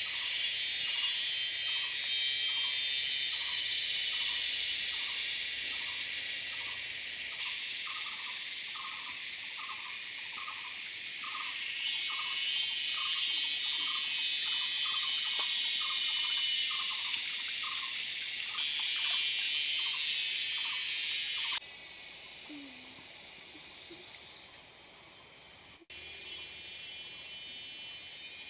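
Dense chorus of forest insects buzzing and trilling. Through most of it a lower call repeats regularly, about one and a half times a second, then stops. The chorus changes abruptly several times, as if cut.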